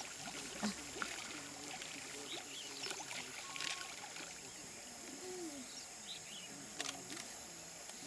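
River water lapping and lightly splashing around a wallowing greater one-horned rhinoceros, over a steady high-pitched drone of insects.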